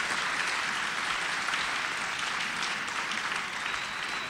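Audience of dinner guests applauding, the clapping slowly dying away.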